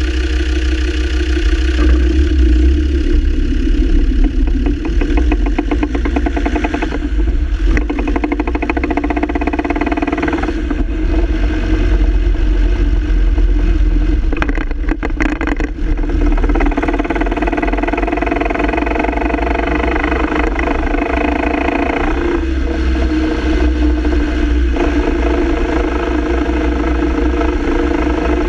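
Land Rover Defender TD5's five-cylinder turbodiesel running steadily with drivetrain noise, the owner's complaint being a rattling double-cardan propshaft.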